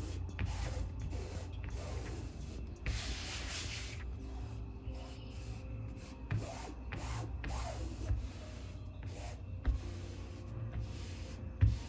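Hand rubbing and sliding over the cloth surface of a Razer Gigantus V2 mousepad: a soft swish about three seconds in and a few light brushes and taps, over a low steady hum.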